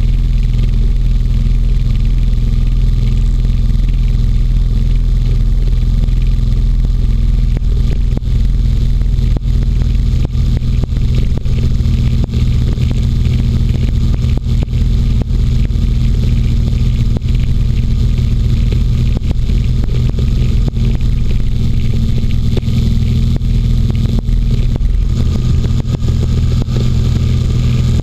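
Inflatable hovercraft's engine and caged propeller running under steady power as the craft glides over snow and ice, a loud, even drone with a deep hum. Near the end the sound changes slightly and gets brighter as the craft picks up speed.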